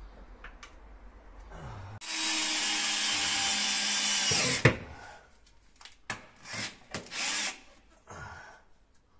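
12 V cordless drill working at a steel wall bracket: one steady run of about two and a half seconds that ends in a sharp click, then a few short bursts.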